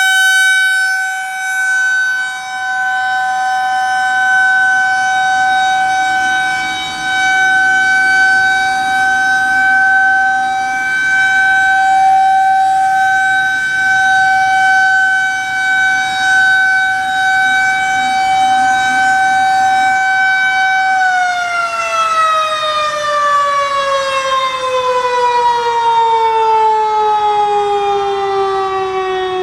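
Federal Signal 2001-130 rotating electromechanical outdoor warning siren sounding a steady single tone, its loudness swelling and fading as the horn turns. About 21 seconds in, the tone starts falling steadily in pitch as the siren winds down.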